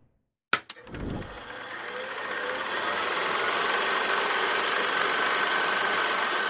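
Title-sequence sound effect: a sharp click and a low thump, then a steady buzzing drone with a fine rapid pulse that slowly swells.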